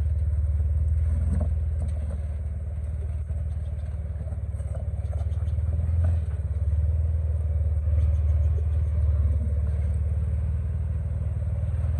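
Jeep Wrangler engine running low and steady as it crawls over granite rock ledges, with a few faint knocks of tyres and rock.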